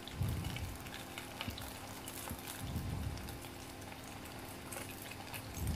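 Hot oil sizzling and crackling as bread-wrapped sausage skewers deep-fry in a pot, with a few soft low thumps.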